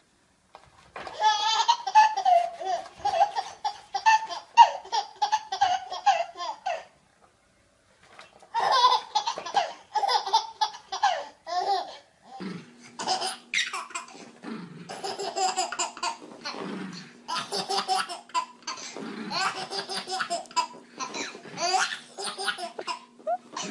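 A baby laughing hard in quick, repeated belly laughs, with a short silent break about seven seconds in. A faint steady hum runs under the second half.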